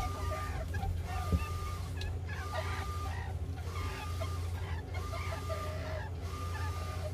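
Meerkats giving soft chirps and clucks. Behind them are a steady low hum and a short flat tone that repeats about every second and a quarter.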